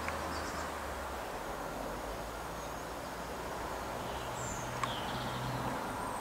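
Steady outdoor background noise with a low hum, and a few faint, short, high bird chirps, once near the start and again a little past the middle.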